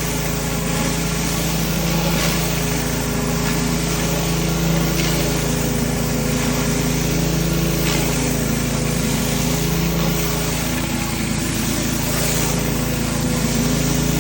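Gas-powered Mi-T-M pressure washer's small engine running steadily under load, with the steady hiss of water spraying from a surface cleaner on concrete.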